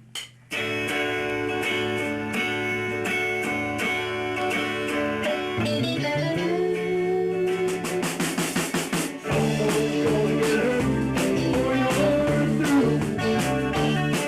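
Amateur rock band playing live at rehearsal: electric guitar chords and bass start together about half a second in, a rapid run of drum hits comes near the middle, and from there the full beat with drum kit and bass carries on.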